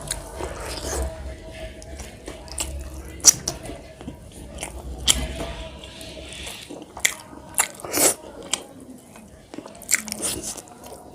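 Close-miked mukbang eating sounds: chewing and biting mouthfuls of rice and fish, with many sharp, irregular crunches and wet smacks, the loudest just past 3 s and around 8 s. A low hum under it stops about two-thirds of the way through.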